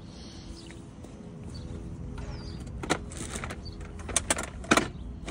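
Doona car seat-stroller being folded: its wheeled leg frame slides up under the seat, with several sharp clicks in the second half as the frame locks into car-seat position.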